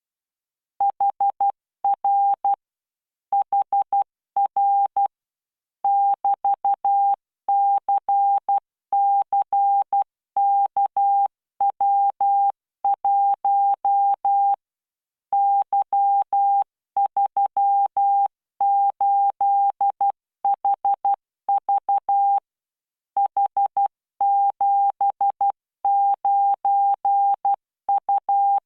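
Computer-generated Morse code practice tone sent at 12 words per minute with standard spacing: a single steady beep keyed on and off in dots and dashes, grouped into characters with short silences between, starting about a second in.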